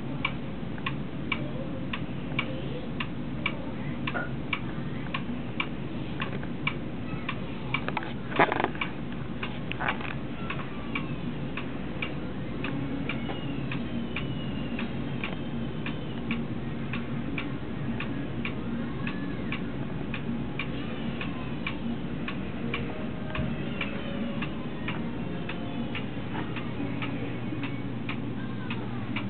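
Steady ticking like a clock, about two ticks a second, over a low steady hum, with one louder knock about eight seconds in.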